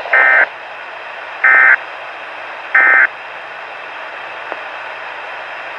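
Three short bursts of SAME digital alert-code tones, about 1.3 s apart, over steady weather-radio static: the EAS end-of-message code that closes the weekly test.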